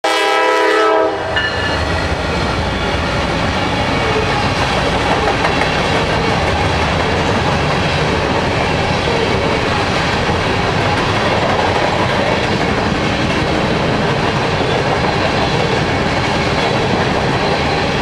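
Diesel locomotive horn chord sounding for about a second and cutting off abruptly. Then the steady rumble and rattle of GE Dash 9 locomotives and empty grain hopper cars rolling past on the rails.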